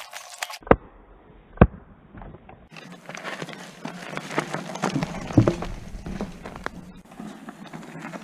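Lapierre Zesty enduro mountain bike ridden fast down a rough trail: tyres crunching and crackling over dirt and stones, with sharp knocks from the bike. Two loud single knocks come in the first two seconds, then a dense run of gravel crunching and clatter.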